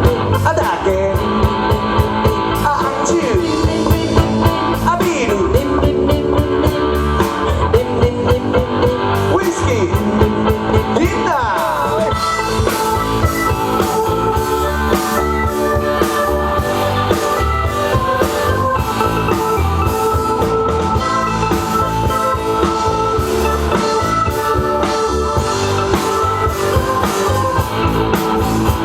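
Rock band playing an instrumental passage, with guitar lines over a steady drum kit beat.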